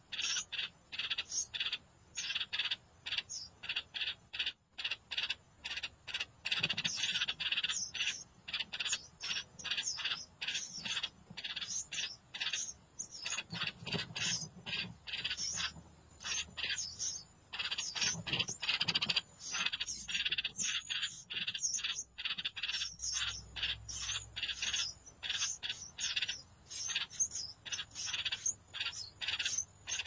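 Songbird nestlings begging in the nest: a rapid, unbroken run of short high chirps, several a second, swelling and fading in waves.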